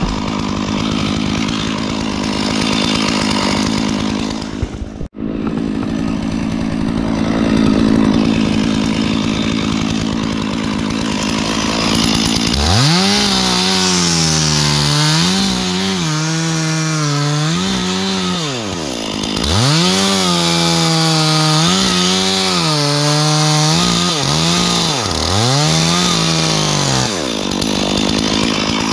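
Stihl chainsaw running. From about halfway it is throttled up and let down in four or five surges, its pitch climbing, holding high and falling each time. The sound cuts out for a split second about five seconds in.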